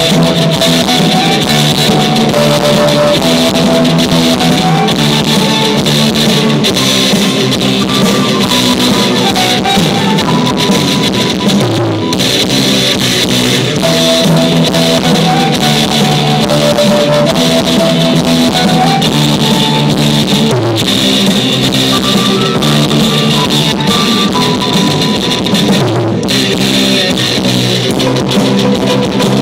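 Live pop band playing rock-style music with drum kit and guitar, a melody phrase stepping up and down and coming round twice. Recorded loud through a cheap phone's microphone.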